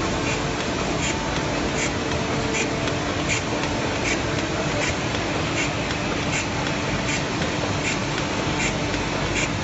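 High-speed drawtape rolling bag-making machine running, with a short sharp stroke about every three-quarters of a second as it cycles through each bag, over a steady mechanical hum and hiss.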